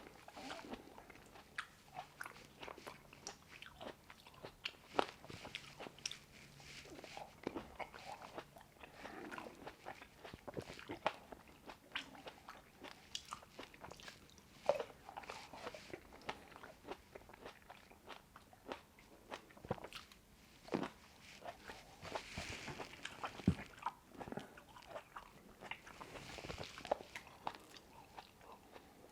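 Close-miked biting and chewing of Shine Muscat grapes: irregular crisp snaps and wet mouth clicks, with a few louder pops.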